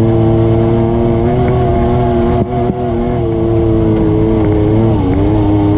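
ATV engine running at a steady pitch, with a brief drop in loudness about two and a half seconds in and a short dip in pitch about five seconds in.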